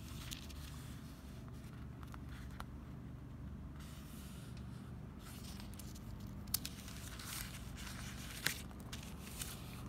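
Faint rustling of thin Bible-paper pages being turned by hand in an R.L. Allan Brevier Clarendon KJV, with two sharper page flicks about two seconds apart in the second half.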